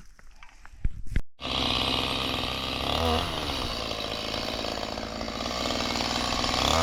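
A few faint clicks, then a two-stroke chainsaw suddenly running steadily about a second and a half in. Its throttle blips briefly near the middle, and near the end it revs up and back down.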